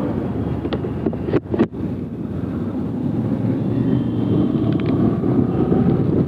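Ride noise from a two-wheeler on a wet road: the engine runs steadily under a dense rumble of tyre and wind noise. There is a brief crackle with a short drop in sound about one and a half seconds in.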